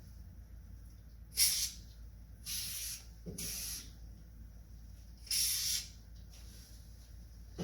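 Aerosol can of Fluid Film lubricant spraying in four short hissing bursts into the truck door's window tracks. The first burst is the briefest and loudest.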